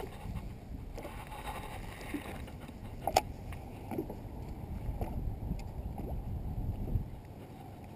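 Low, steady rumble of wind on the microphone and water sloshing against a small fishing boat's hull, with scattered light clicks and knocks, one sharper click about three seconds in.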